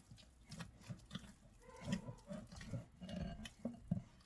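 Hands kneading soft yeast dough in a ceramic bowl: irregular wet squelches and soft thumps as the dough is pressed and folded, with the odd knock of the bowl.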